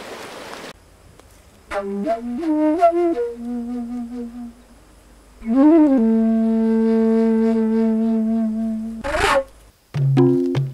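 Background music: a melody of short stepping notes, then one long held note, scooped up into at the start and bent at its end, and a lower rhythmic part that comes in near the end.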